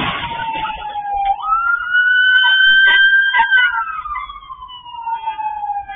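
Police car siren on a slow wail: the tone dips, climbs quickly about a second in, holds high, then falls slowly over a couple of seconds and starts climbing again near the end.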